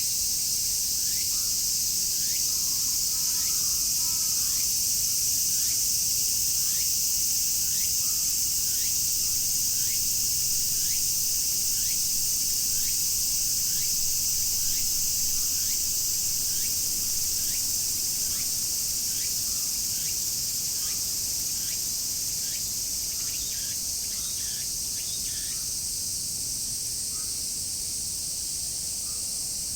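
A dense chorus of cicadas makes a steady high-pitched buzz, with a shorter falling call repeating about once a second underneath. A brief, fainter call comes in about three seconds in.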